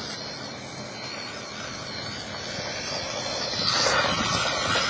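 Megatech Megapro 1/18-scale RC truck driving through loose sand, its motor and gears giving a thin wavering whine over a steady hiss that grows louder toward the end.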